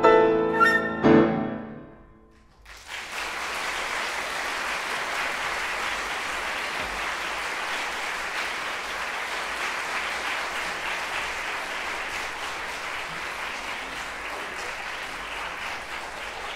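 Flute and grand piano play the closing notes of a classical piece, ending on a loud final chord about a second in that rings and dies away. Audience applause breaks out about two and a half seconds in and carries on steadily.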